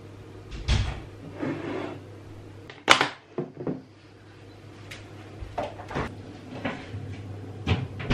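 A run of separate kitchen handling knocks and clicks as soup is ladled into a plastic food tub, the tub is lidded and carried off, and cupboard doors are shut; the sharpest click comes about three seconds in. A steady low hum runs underneath.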